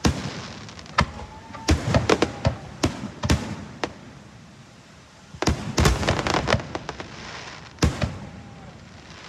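Fireworks going off: a string of sharp bangs and cracks in quick clusters, with a short lull about four to five seconds in.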